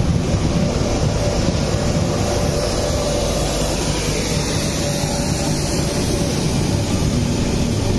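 Freight train passing close by, an Indian Railways diesel locomotive and a string of covered wagons, with a steady rumble of wheels on the rails.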